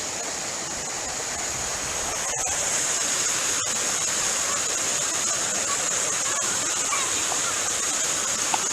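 Steady rush of water from a waterfall, getting a little louder about two and a half seconds in, with one small tick near the end.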